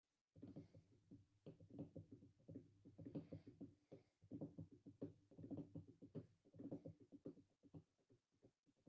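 Near silence: faint room sound with soft, irregular knocks and taps.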